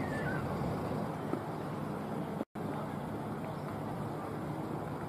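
Steady outdoor background noise, an even hiss and rumble with no clear event, cut by a brief total dropout about halfway through where two clips are joined.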